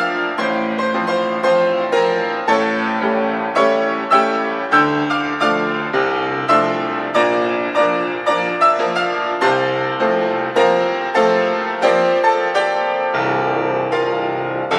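Solo piano playing a busy passage of struck notes and chords, with fresh attacks several times a second.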